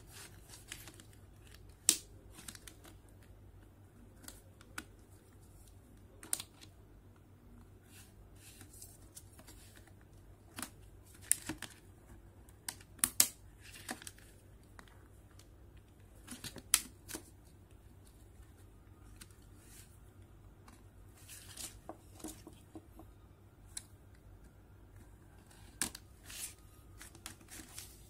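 Plastic pry tool working around the plastic midframe of an Asus Zenfone Go X014D phone: scattered sharp clicks and snaps as the tool and the frame's clips are worked, with light handling noise between them.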